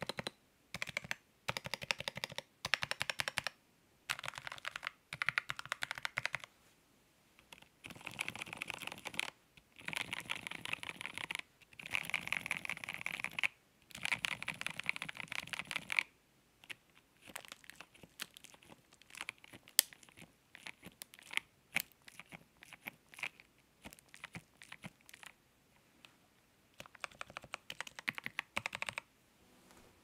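Typing on an ACGAM FancyAlice66 Alice-layout mechanical keyboard with clear keycaps. Bursts of rapid keystrokes are separated by short pauses, and after about sixteen seconds the keystrokes turn sparser and quieter.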